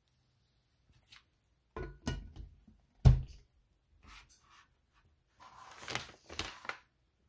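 Scattered handling knocks and clicks, the loudest a single sharp thunk about three seconds in, then a short rustle near the end. No motor is running.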